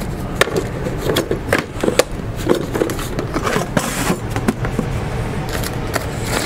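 Metal exhaust clamps and brackets clinking in a plastic tub. Scattered sharp clicks and knocks follow as parts and tools are handled on a cluttered workbench, over a steady low rumble.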